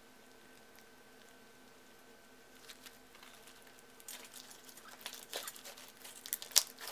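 Thick clear slime with small beads mixed in being stretched and squeezed by hand, giving short sticky clicks and crackles. It is almost silent at first; the clicking starts about three seconds in and grows denser near the end.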